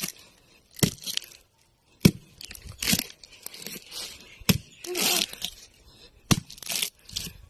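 Rotten coconut palm wood being broken apart: about six sharp cracks spread through, with tearing and crumbling between them.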